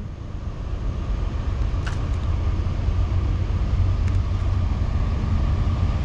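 Low rumble of an approaching freight train's three diesel-electric locomotives (a GE AC44C6M, an EMD SD70ACU and a GE ES44DC), still far down the line and slowly growing louder.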